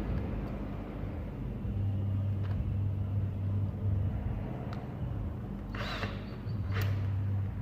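A low hum that comes and goes, with a few light clicks and a short scrape about six seconds in, from hands working on the plastic dash fitting.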